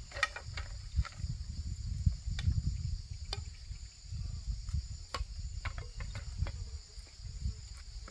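A steady, high-pitched insect chorus runs throughout. Over it are low rumbling noises, the loudest sound, and scattered clicks and knocks.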